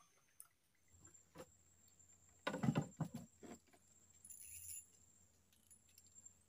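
Fishing rod and tackle knocking and rattling against a wooden boat: a single click, then a short cluster of knocks and rattles about two and a half seconds in, over a faint steady high whine.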